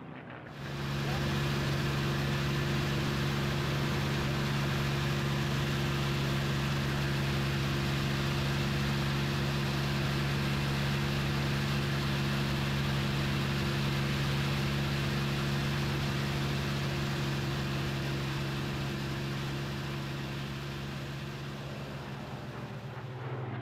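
Steady aircraft engine drone with an even rushing noise, holding one pitch throughout; it cuts in sharply about half a second in. Near the end it fades, and engines sliding in pitch as they pass take over.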